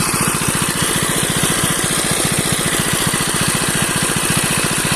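Single-cylinder diesel engine of a shallow-machine irrigation pump running steadily, with an even, fast chugging beat as it pumps water out of a pond.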